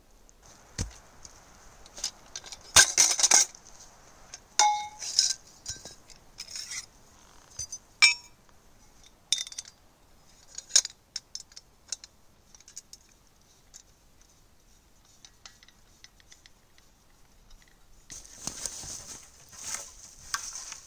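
Irregular metallic clinks and clanks of light metal tubes and a folding saw being handled, a few ringing briefly. Near the end, footsteps rustling through dry leaf litter.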